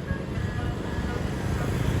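A bus's multi-note telolet (basuri) horn playing a short tune in quick notes, over the low rumble of the bus's diesel engine, which grows louder toward the end.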